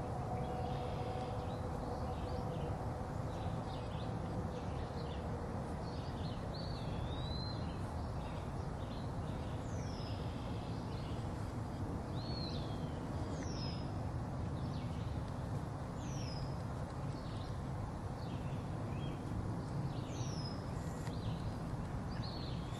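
Songbirds calling in the background, a short downward-sweeping whistle every few seconds among scattered chirps, over a steady low outdoor rumble.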